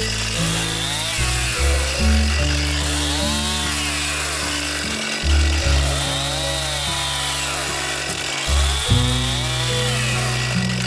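Stihl MS261 two-stroke chainsaw revving up and dropping in pitch as it cuts, about four times, under background music with steady bass notes.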